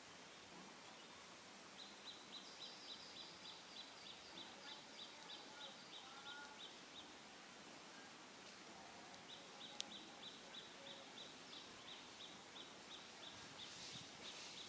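Faint outdoor ambience with a rhythmic high chirping, about four chirps a second, in two long runs, and a single sharp click about two-thirds of the way through.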